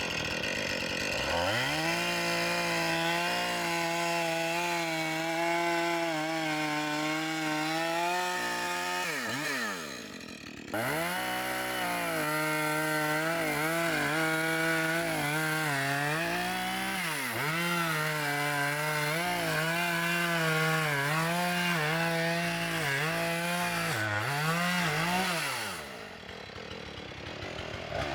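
Chainsaw running at high revs while cutting the pie (notch) cut into a leaning tree's trunk, its pitch wavering as it works through the wood. It drops back toward idle briefly about ten seconds in, then revs up again, and drops back again near the end.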